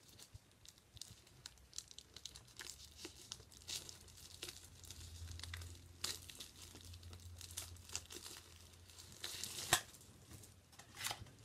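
Faint crinkling and rustling of packaging being handled, with scattered light clicks and taps.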